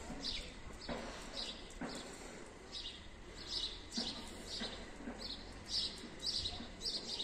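Small birds chirping over and over in short, high chirps, about two a second, with a few soft knocks among them.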